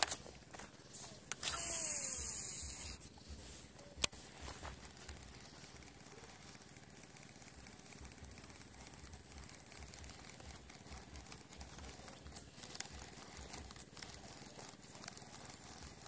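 Baitcasting reel's spool running out line during a cast: a hiss with a whine that falls in pitch as the spool slows, about a second and a half in. A single sharp click follows about four seconds in, then faint handling noise.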